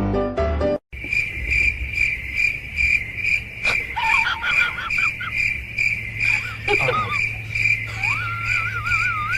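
Crickets chirping steadily, about three high chirps a second, starting right after music cuts off under a second in. Faint warbling sounds come and go over the chirping.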